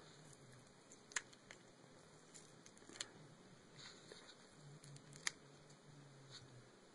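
Near silence with a few faint, short ticks and rustles, small handling sounds from the connector tape being peeled off.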